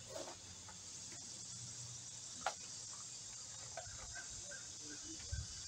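Outdoor insect chorus of crickets, a steady high-pitched chirring, with a few faint chirps and one light click about two and a half seconds in.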